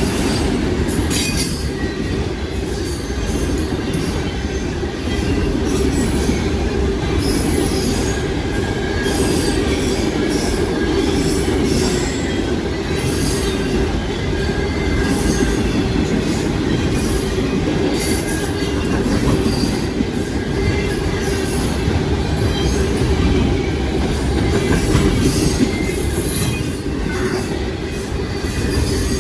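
Long auto-rack freight train passing close at speed: a steady rumble of the cars with a stream of wheel clicks over the rail and occasional thin, high wheel squeals.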